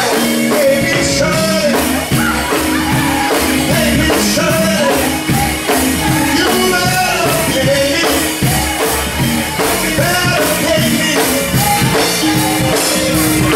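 Live band music on keyboard and drum kit, with a man singing over it through a microphone.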